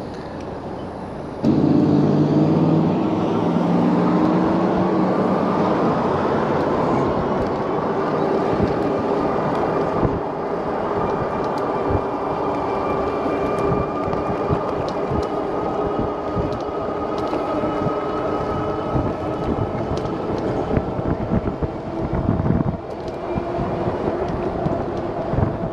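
Riding noise from an electric bike on a road: a motor whine that starts suddenly about a second and a half in and rises in pitch as it speeds up, then holds steady, over wind and tyre noise.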